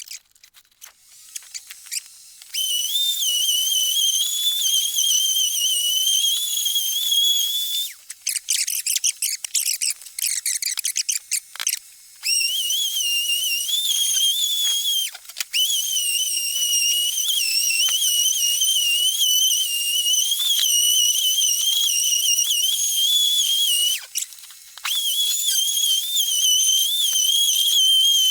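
Orbital sander running on a yellow pine board with a steady high-pitched whine that wavers slightly. It stops for a few seconds about a third of the way in, with some scraping and rattling while it is off, and stops again briefly near the end.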